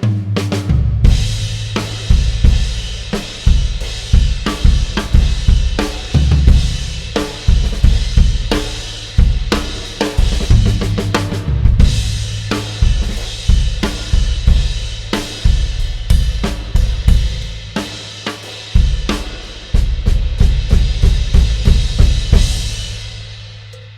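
A drum kit played as a steady groove to show off Pergamon hand-hammered Turkish cymbals: kick and snare under a constant cymbal wash from the hi-hats, ride and crashes. Near the end the drums stop and a struck cymbal rings out and fades.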